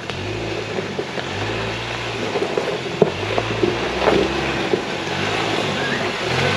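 Ford Bronco's engine running at low speed as it crawls over a dirt trail, with scattered clicks and knocks from the tyres and chassis.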